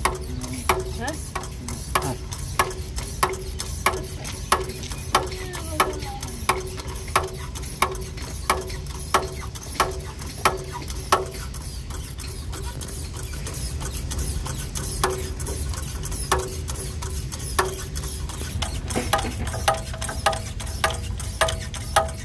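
Eral hand-lever hydrostatic test pump being stroked to pressurise a PVC pipeline for a leak test: a regular mechanical click about one and a half times a second. The strokes stop for a few seconds about halfway, then resume and come a little faster near the end.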